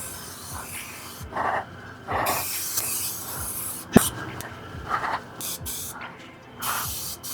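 Aerosol can of 3M Hi-Strength 90 spray adhesive spraying in repeated short hissing bursts. A sharp click about four seconds in.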